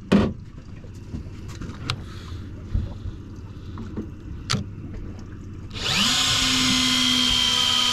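Electric deep-drop fishing reel switched on about six seconds in, its motor winding line in with a steady whine. Before it starts there are only a few light clicks and knocks.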